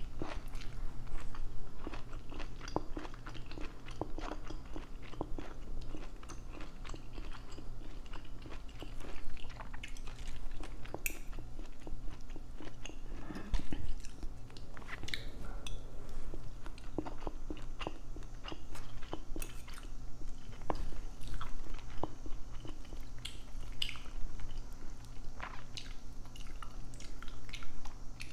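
Close-miked chewing of rice and green beans: steady wet mouth sounds with many small irregular clicks and crunches, and now and then a spoon and fork tapping and scraping on a plate.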